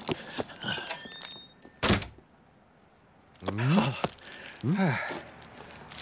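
A shop doorbell jingles briefly and a door knocks shut, then two short wordless vocal grunts, each rising and falling in pitch, in a cartoon soundtrack.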